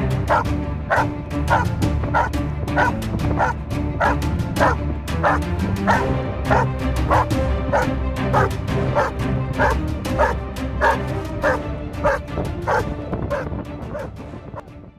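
German Shepherd dog barking steadily at a helper in a training blind, about three barks a second: the bark-and-hold guarding exercise of IPO protection work. Background music plays under the barks, which fade out near the end.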